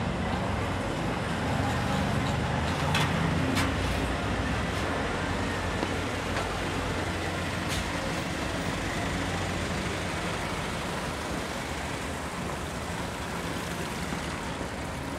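City street traffic: a steady wash of road noise with a low engine rumble from passing vehicles. A few short sharp clicks cut through about three seconds in and again near eight seconds.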